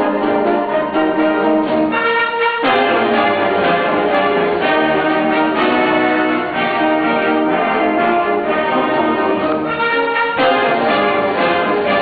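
Concert band playing sustained, full chords, with the harmony shifting sharply about two and a half seconds in and again near the end.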